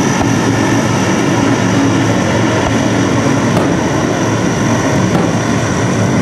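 A steady, loud engine-like roar with no rise or fall, and a few faint pops about once every second or two.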